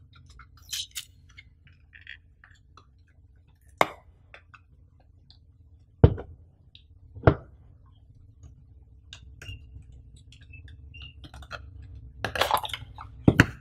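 Samsung Galaxy Buds cardboard retail box being handled and opened by hand: small scratches and clicks as the seal is worked at, two sharp knocks about a second apart near the middle, and crackly paper-and-card rustling near the end.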